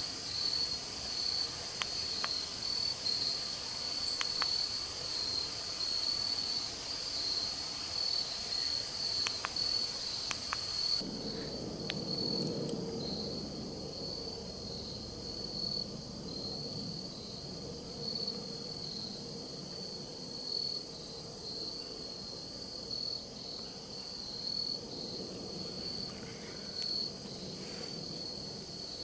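Insects trilling in a steady high chorus that pulses evenly, with a few faint clicks in the first third.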